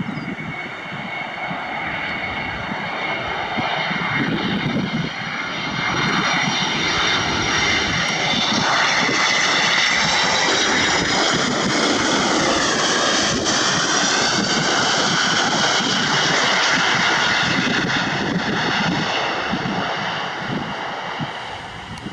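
Jet airliner's engines passing close by on landing approach: a steady jet whine that swells, holds loud, and slides down in pitch about halfway through as the aircraft goes past, then fades near the end.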